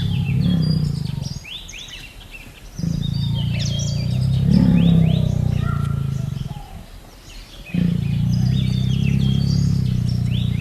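Three long, low, rumbling growls from a large animal, with birds chirping throughout in the background.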